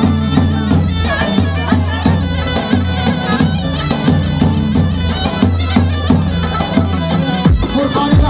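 Kurdish folk dance music from a live wedding band: a melody line over a steady, repeating bass and beat.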